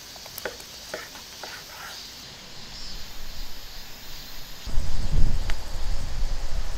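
A large knife slicing through crusty smoked pork belly and knocking on a bamboo cutting board: a few sharp clicks in the first two seconds, with insects chirring faintly behind. A bit over halfway through, a loud low rumble starts and becomes the loudest sound.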